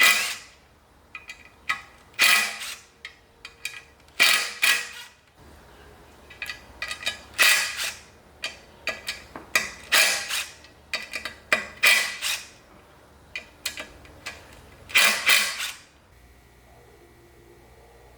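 About a dozen sharp metallic clinks and clanks at irregular intervals, from hand tools and the small assembly screws of a three-piece BBS RS wheel being worked out. They stop about two seconds before the end, leaving a faint steady hum.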